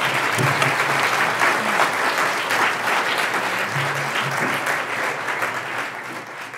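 Audience applauding: many people clapping steadily, gradually dying away toward the end.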